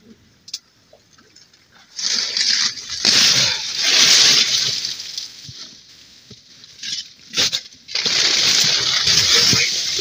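Plastic tarp rustling and crinkling, with snow crunching underfoot, as a person crouches and climbs into a tarp shelter. It comes in two long noisy stretches, one starting about two seconds in and another near the end, with a few sharp clicks between.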